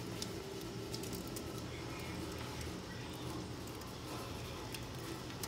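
Steady rain falling on the yard and patio, with scattered sharp ticks of drops striking nearby.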